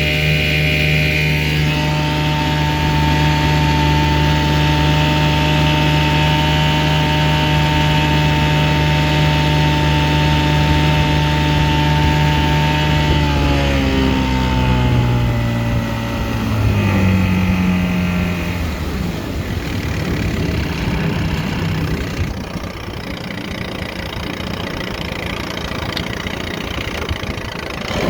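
1965 McCulloch-built Sears Ted Williams 7.5 hp low-profile two-stroke outboard running steadily under power, then throttled back about halfway through. Its pitch drops in steps and it settles to a low, rough idle.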